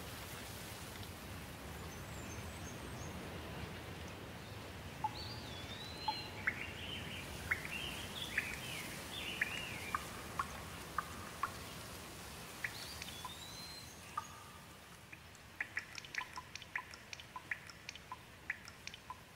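Steady rain falling on foliage, with a bird calling in short whistled chirps and rising-and-falling notes through the middle. From about three-quarters of the way in, the rain hiss thins and close water drops fall in quick, sharp ticks.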